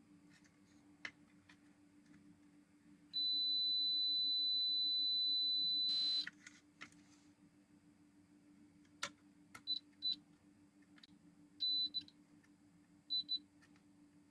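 Multimeter continuity buzzer beeping as diodes and resistors on a circuit board are tested: one long, steady, high-pitched tone of about three seconds, then several short beeps, some in quick pairs, with small clicks of the probes touching the parts. A low steady hum sits underneath.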